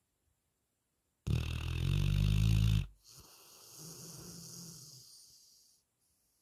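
A sleeping retriever dog snoring: one loud, rattling snore starts about a second in and lasts about a second and a half, followed by a softer, longer breath of nearly three seconds.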